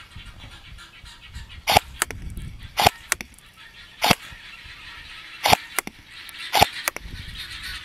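AIRO TW electric airsoft M4 replica fired in single shots: five sharp cracks roughly a second apart, most followed by a fainter click a fraction of a second later.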